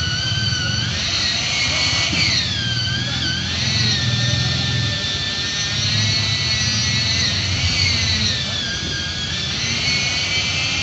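Power saw running steadily: a loud motor with a high whine that dips and rises as its speed changes, over a low rumble.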